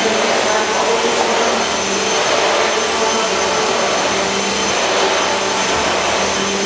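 Upright vacuum cleaner running steadily, a constant motor whine and rush of air with a steady hum underneath.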